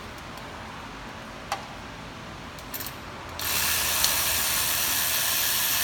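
Hand socket ratchet clicking rapidly for about two and a half seconds, running out a small bracket bolt on the AC compressor hose manifold. Before that come a few separate light tool clicks.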